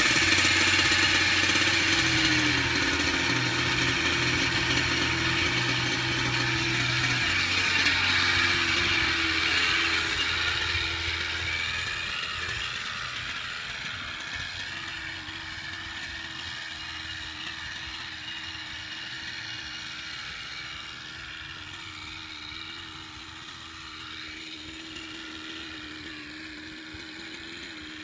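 Small nitro glow engine of an Align T-Rex 600N RC helicopter running at idle, a steady buzzing drone. It grows fainter after about ten seconds and stays low to the end.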